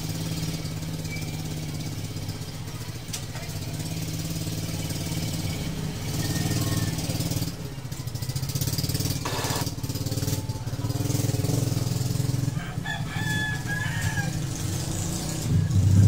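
Epson L3110 printer running its ink head-cleaning cycle, its carriage motor and gear train turning with a steady low hum. It is the normal running sound, with the encoder disc and gears turning in step again.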